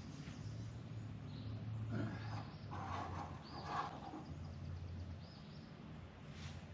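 1956 John Deere 420 tractor's two-cylinder engine idling with a low steady hum, with a few short bird chirps over it.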